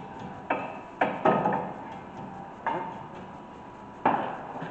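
A hammer taps metal brake pad hardware clips into place on a caliper bracket: about five sharp metallic taps at uneven intervals, each with a brief ring.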